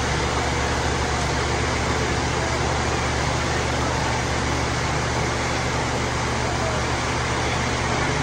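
Steady mechanical hum with a broad rushing hiss over it, unchanging in level, like machinery running continuously.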